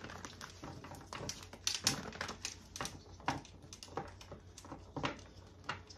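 Tarot cards handled and shuffled by hand: a run of light, irregular clicks and taps, several a second.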